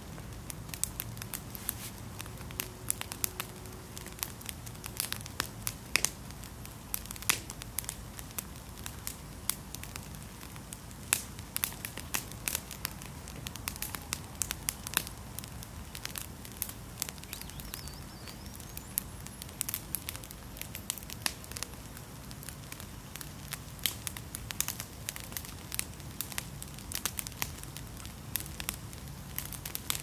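Dry twigs and sticks burning in a small metal fire bowl, crackling with frequent irregular sharp snaps and pops over a steady low background.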